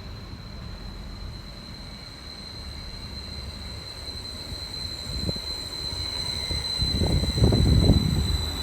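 A train approaching on the line: a steady high whine over a low rumble that grows louder. Near the end comes a cluster of heavy knocks.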